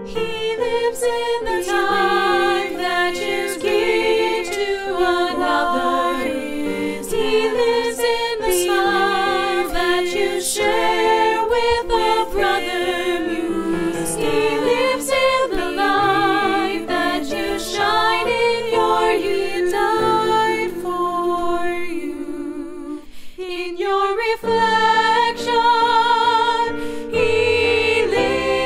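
Music: several voices singing together in harmony with vibrato, with a brief dip about three quarters of the way through.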